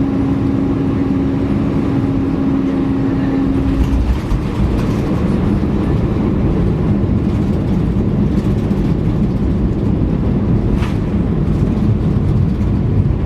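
A vehicle's engine running steadily with a loud, even drone. Its steady hum drops a little in pitch about four seconds in.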